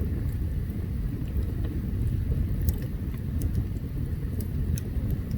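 Campfire burning: scattered sharp crackles and pops over a steady low rumble.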